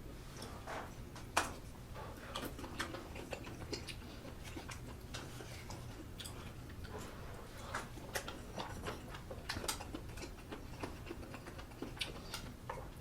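Close-up eating sounds of sausage stew: many irregular small clicks and wet mouth noises from chewing, with a steady low hum underneath.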